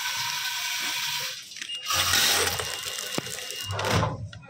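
Automatic fastener pouch packing machine running with a steady hum. About two seconds in, a louder rushing rattle lasts around two seconds as a dose of nails drops down its forming tube into the pouch, with a single click partway through.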